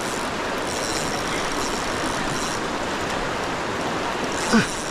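Steady rush of river water flowing past, with a brief voice-like sound near the end.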